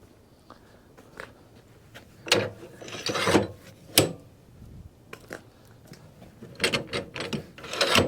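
Metal scraping, clicking and rattling from the sawmill's log-handling gear being set against a log, in irregular short bursts: a loud group a little after two seconds in and another near the end, with a sharp click at about four seconds.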